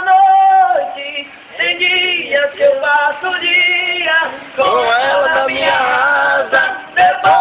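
Two men singing a northeastern Brazilian cowboy toada in duet, unaccompanied, with long held notes.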